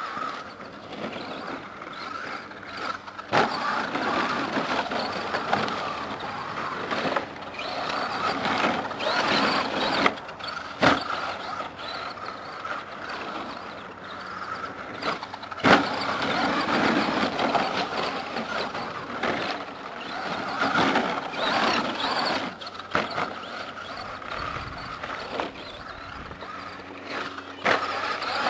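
Team Associated SC10 radio-controlled short course truck with an old LeMans 240ST brushed electric motor on a 2S LiPo, its motor whining up and down as it is driven over a dirt track. Several sharp knocks come as it lands from jumps.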